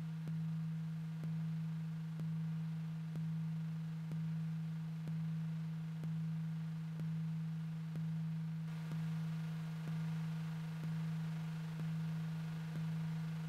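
A low, steady droning tone pulsing about once a second, each pulse sounding and then fading before the next: a slow, even drone in the film's soundtrack.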